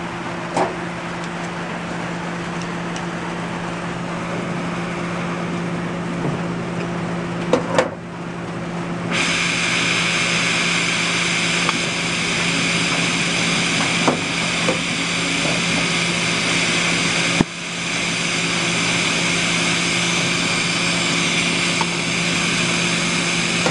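Gas torch flame burning with a steady rushing hiss over a low steady hum, heating a small fire-brick smelting furnace holding a crucible. About nine seconds in the hiss turns suddenly louder and brighter as the flame is aimed into the furnace's lower port; a few sharp clicks or knocks cut through it.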